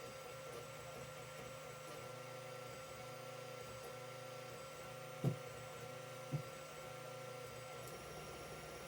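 Creality CR-10 3D printer running: a steady hum with a few held tones, broken by two short thumps about five and six seconds in.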